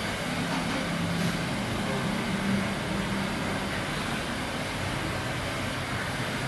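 Steady room noise of a large barber-shop hall, with a low hum that comes and goes.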